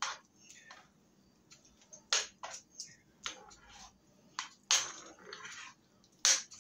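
A spoon scraping and knocking against a cast-iron skillet while a thick ground turkey mixture is stirred, in short irregular strokes, the loudest near the end.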